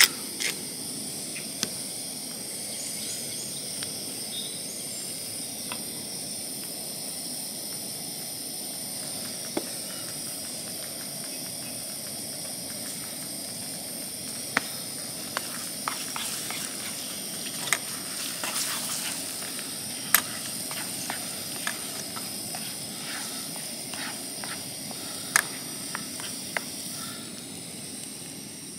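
Eggs sizzling in a frying pan over a hissing canister camp stove, steady throughout, with scattered sharp clicks and taps of utensils against the pan.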